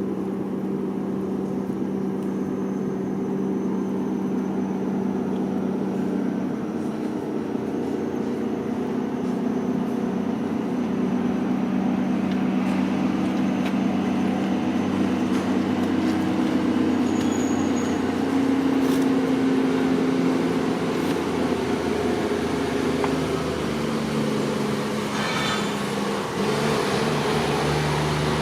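An engine running steadily, a low drone whose pitch drifts slowly up and down.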